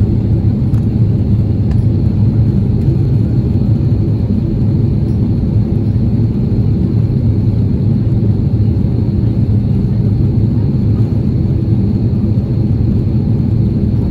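Steady cabin noise inside an Airbus A330-300 airliner descending to land: engine and airflow noise as a loud, even rumble, deep in pitch, with no changes.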